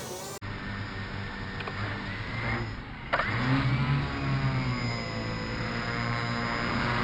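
XK X450 VTOL RC plane's electric motors and propellers whining in flight, rising and falling in pitch, and getting suddenly louder about three seconds in.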